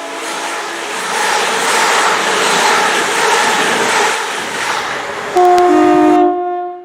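Passenger train rushing past with a loud, even noise of wheels and air. About five seconds in it gives a short two-tone horn blast, which cuts off sharply.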